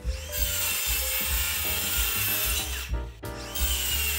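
Milwaukee cordless circular saw cutting through thin wood strips held in a plywood sled jig, a steady high whine over rasping cutting noise. The sound breaks off briefly about three seconds in, then the cut goes on.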